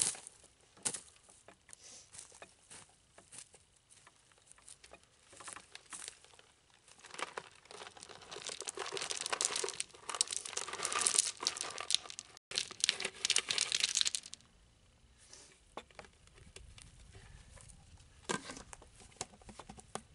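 Plastic bag of mineral rock chunks crinkling and rustling as it is handled and emptied onto bare dirt, with sparse crackles at first and a dense, louder stretch of crinkling for several seconds around the middle.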